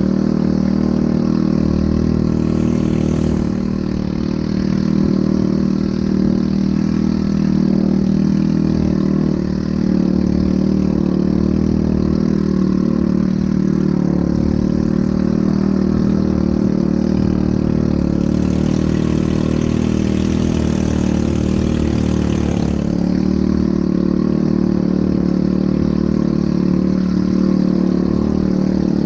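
ATV engine running at a steady speed, with a rushing hiss over it from about four seconds in until about twenty-three seconds in.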